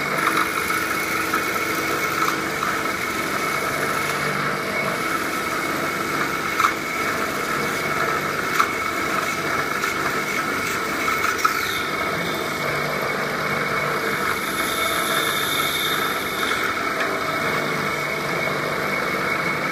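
Wood bead lathe running with a steady machine noise, a few sharp clicks along the way. About halfway through, a high whine glides down and holds for several seconds, then stops.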